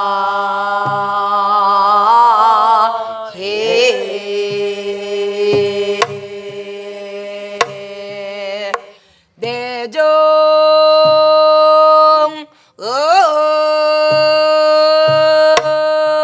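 Korean Namdo folk-song singing: long held notes with a wide, wavering vibrato, joined by sliding rises in pitch, and a brief break twice. Under it a buk barrel drum is struck now and then, with low palm thumps and a few sharp stick clicks.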